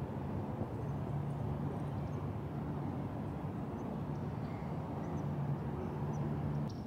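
A distant engine running steadily with a low hum, over open-air background noise.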